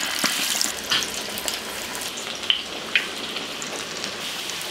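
Radish balls deep-frying in hot oil: a steady sizzling hiss, with a few sharp clicks and pops over it.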